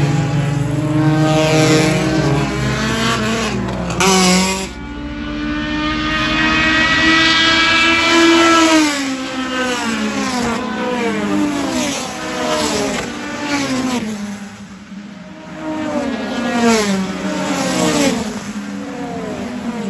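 A pack of 90s Honda Civic race cars with high-revving four-cylinder engines going by one after another at racing speed. A close pass cuts off about four and a half seconds in, then the engine notes climb and fall again and again as more cars approach and pass.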